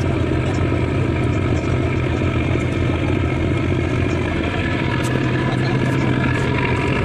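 Boat's engine running steadily, a constant low drone heard on deck while under way.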